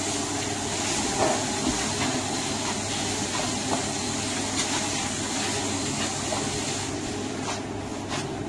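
Commercial electric meat grinder running with a steady motor hum and hiss.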